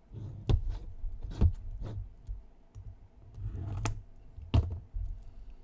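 Trading-card boxes and card cases being handled on a tabletop: a run of sharp clicks and light knocks, about five louder ones, with some soft rustling between them.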